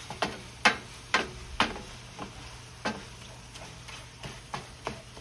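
Wooden spoon stirring seasoned ground beef in a frying pan over a steady sizzle. The spoon knocks against the pan about twice a second for the first few seconds, then more softly and sparsely.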